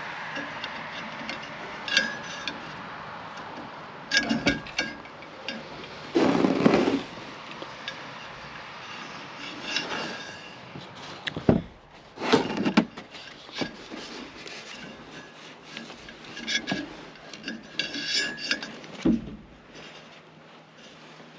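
Irregular knocks, clicks and rubbing noises of hands-on work with tools and hardware, in scattered bursts with short pauses between.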